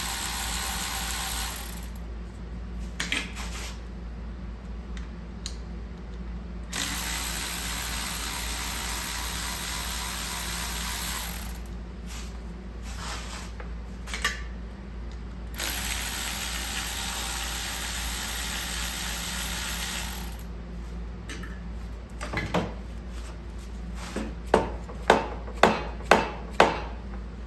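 Handheld power tool running in three steady bursts of about five seconds each, then a row of sharp knocks, about two a second, near the end.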